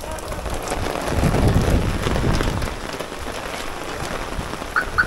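Steady rain falling on wet pavement, an even hiss, with two short high chirps near the end.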